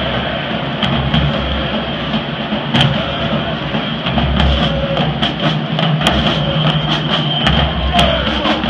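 Large college marching band playing across a stadium: brass and drums over crowd noise, with sharp drum and cymbal strikes coming thicker from about four seconds in.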